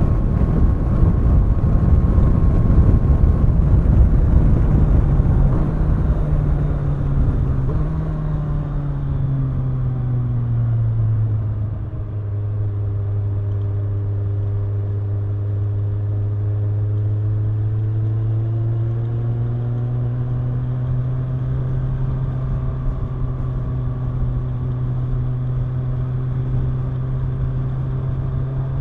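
Kawasaki Ninja 1000's inline-four engine and exhaust while riding, under heavy wind noise at first. About eight seconds in, the engine note drops as the bike slows, the wind noise eases, and the engine then holds a steady note at an even speed.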